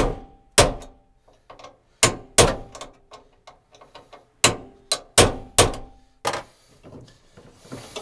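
Hammer striking a center punch set in a steel rivet of a van's sliding-door inner panel: about eight sharp metal-on-metal strikes at uneven intervals, some with a short metallic ring. The rivet is stubborn and not yet driving out.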